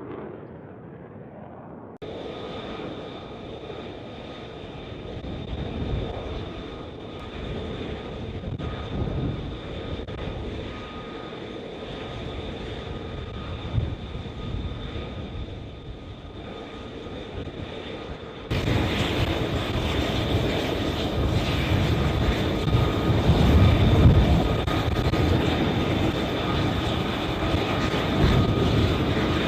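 F-35 Lightning II's Pratt & Whitney F135 jet engine running: a steady high whine over a deep rumble. It gets abruptly louder and rougher about two-thirds of the way through.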